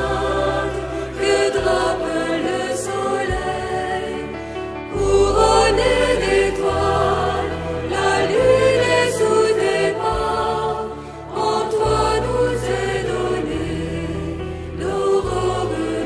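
Choir singing a French Catholic hymn to the Virgin Mary, over accompaniment that holds long low notes changing every second or two.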